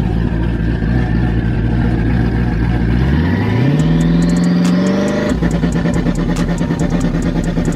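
Chevrolet Corvette V8 running steadily, then rising in pitch as it revs up about three seconds in, and holding at a steady higher speed after that.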